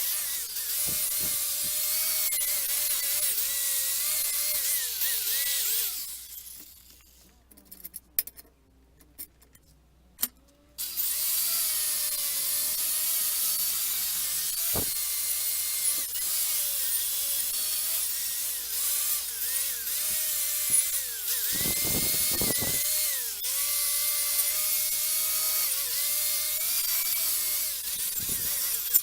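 Handheld power tool running with a strong hiss, its motor pitch dipping and wavering under load. It stops about six seconds in and starts again about five seconds later.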